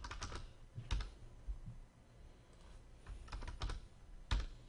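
Computer keyboard keys typed in short bursts, with a couple of sharper single keystrokes about a second in and near the end.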